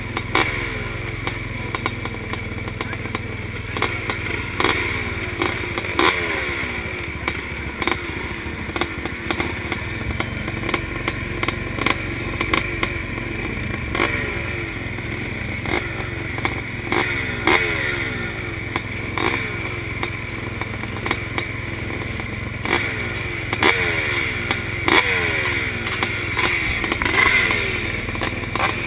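Several classic motocross bikes idling together at the start line. Riders keep blipping their throttles, the revs jumping and falling back again every second or two over a steady low engine drone.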